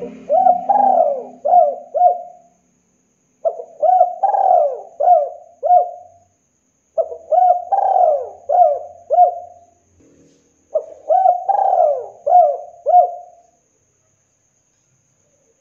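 Spotted dove cooing: four phrases of four or five quick coos each, a few seconds apart.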